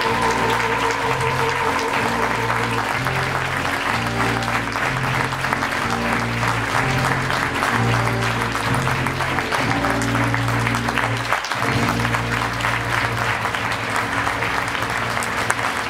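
Audience applause over live band music with a repeating bass line; a held high note with vibrato ends about two and a half seconds in.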